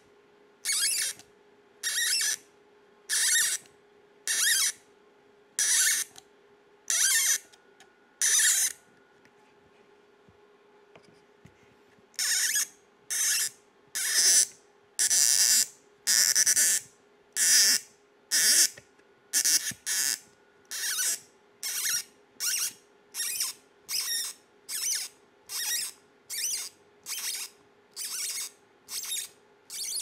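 Hand tap (M3 spiral-flute tap in a T-handle tap wrench) cutting threads into thin acrylic: short scratchy bursts, one with each stroke of the wrench, about one a second at first, then a pause of some three seconds about 9 s in, then quicker, nearly two a second.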